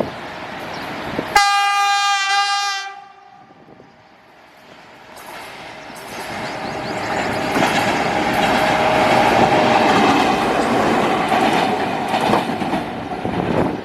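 A diesel locomotive horn sounds one blast of about a second and a half. Then a passing train's rumble and wheel clatter on the rails build up over several seconds and stay loud.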